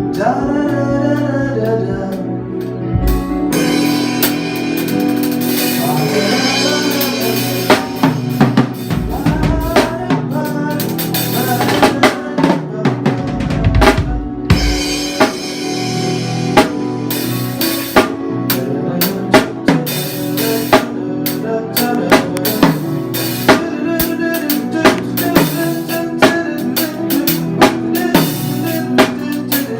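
Drum kit playing a steady beat of bass drum and snare strokes over held instrument chords, as in a band's sound check. The drums come in loosely at first and settle into a regular beat about halfway through.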